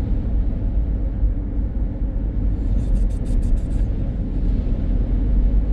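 Steady low rumble of road and wind noise inside a car's cabin, driving at highway speed through a snowstorm in strong wind. A brief run of faint high clicks comes about halfway through.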